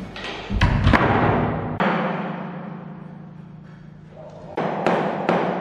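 Steel claw hammer knocking a thin wooden strip into place along the bottom of a door: a few heavy thuds about a second in, one more knock near two seconds, then light, even taps about twice a second near the end.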